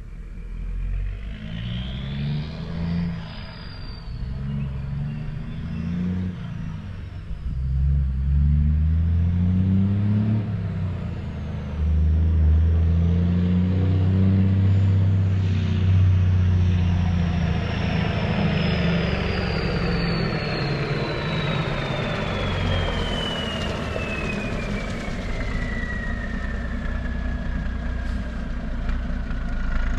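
Semi truck's diesel engine pulling hard and working up through the gears, its pitch climbing and dropping back several times. A thin high whine slowly falls in pitch through the second half.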